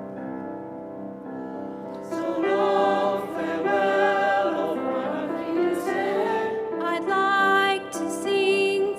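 Piano playing softly, then voices singing a song over the piano accompaniment from about two seconds in, clearly louder once they come in.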